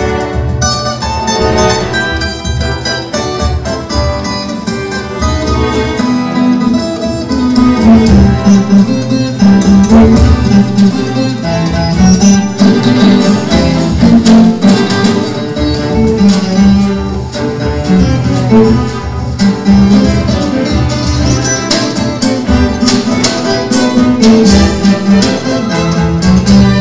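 Live cello ensemble playing a rhythmic pulsing accompaniment, with a viola caipira plucked and strummed over it.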